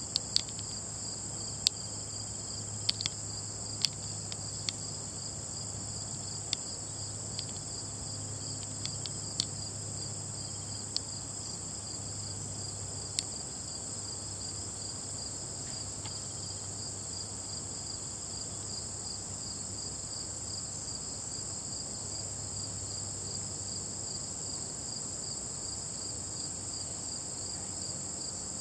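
Steady chorus of singing insects such as crickets, a continuous high-pitched trill with a faster pulsing layer just beneath it. About a dozen sharp clicks sound over the first half.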